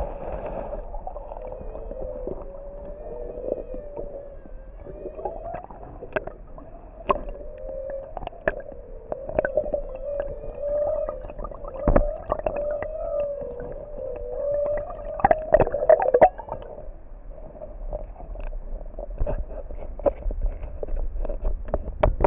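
Muffled sound of river water heard underwater: a wavering hum with scattered sharp clicks and knocks, loudest around the middle.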